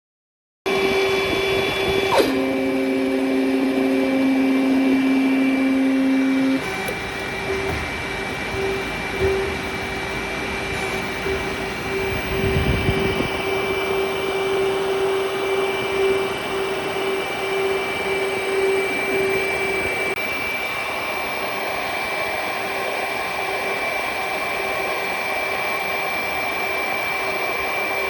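Desktop injection molding machine with its automated part picker running through a cycle: a steady mechanical whir with a constant high whine, a click about two seconds in, and a lower motor hum that stops about six and a half seconds in.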